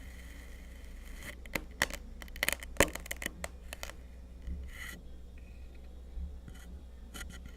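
Kinetic sand being worked by hand or tool: a quick run of crisp crunching and scraping strokes beginning about a second in and lasting a few seconds, with a couple more near the end.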